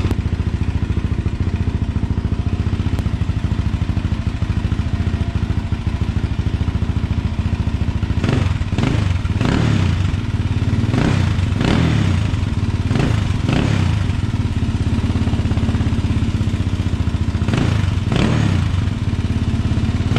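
Suzuki LTZ400 / Kawasaki KFX400 quad's 398 cc single-cylinder four-stroke engine running through a new Yoshimura slip-on exhaust with its spark arrestor still fitted. It idles steadily, then the throttle is blipped about half a dozen times in the second half, each rev rising and falling back to idle.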